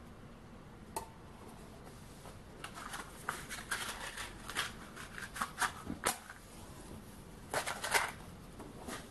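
Small clicks and scrapes of metal being handled: the brass methylated-spirits burner pot is set down onto its magnetic base under the model steam engine's boiler. A short, scratchy burst about three-quarters of the way through comes as the spirit is lit.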